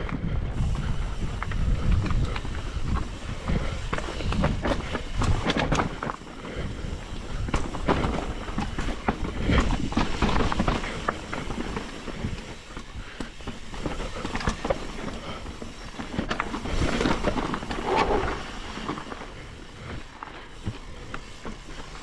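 Mountain bike descending a rocky, loose-stone trail: tyres crunching and clattering over rock, with frequent knocks and rattles from the bike and a low rumble throughout.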